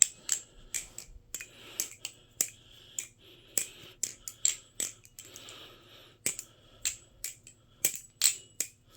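A channel-construction balisong being flipped: its metal handles clack and click against each other in quick, irregular, sharp strikes that ring briefly, with a soft swishing between some of them.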